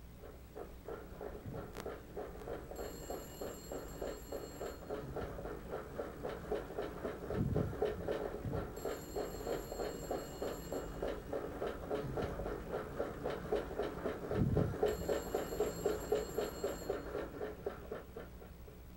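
Stationary exercise bike being pedalled, its flywheel whirring in a steady rhythmic pulse with a couple of heavier knocks. A telephone rings three times over it, each ring about two seconds long, one every six seconds.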